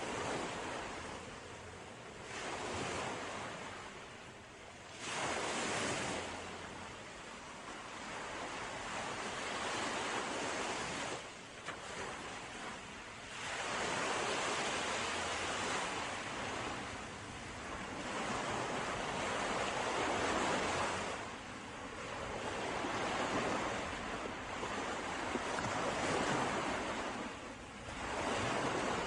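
Sea waves breaking on the shore, the surf surging in and washing back, swelling and fading every few seconds.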